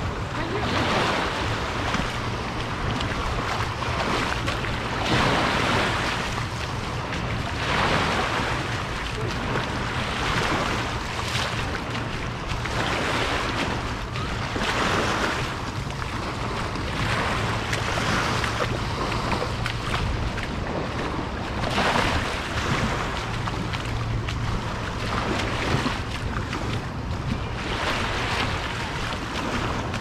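Sea waves breaking and washing up on the beach, the hiss of the surf swelling every few seconds, with wind on the microphone and a steady low hum underneath.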